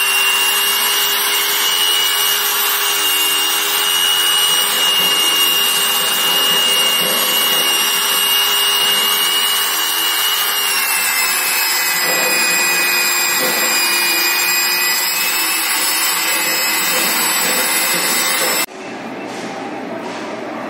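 Hand-held electric marble polisher running with a grey polishing pad pressed against a marble slab: a steady motor whine over a rubbing, grinding hiss. The whine dips slightly in pitch about ten seconds in, and the sound cuts off abruptly near the end.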